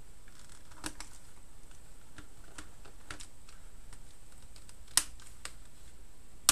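Scattered plastic clicks and taps from a Rapoo X1800 wireless keyboard being handled, fingers pressing and prying along its top edge, with one sharper click about five seconds in.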